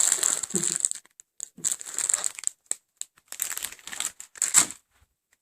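Packets of potato chips being handled, their plastic-foil bags crinkling in irregular bursts that stop shortly before the end.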